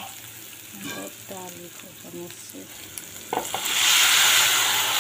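Sliced onions frying in oil in a steel kadai, stirred with a metal spatula. Near the end a liquid is poured in and meets the hot oil with a sudden loud hiss that carries on.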